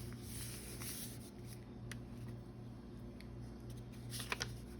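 Faint paper handling: a soft rustle and slide of paper in the first second, then a few light taps and clicks, two of them sharper near the end, over a low steady hum.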